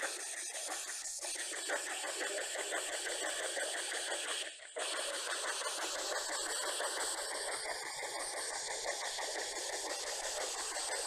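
P-SB11 spirit box sweeping through radio stations: a steady rush of choppy radio static from its small speaker, breaking off for a moment a little under halfway through.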